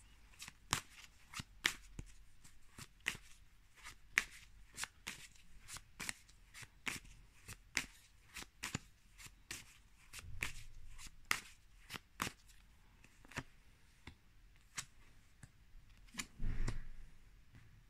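A tarot deck being shuffled by hand: cards clicking and slapping together in quick, irregular strokes, two or three a second. Near the end there is a louder brushing as cards are laid down on the cloth.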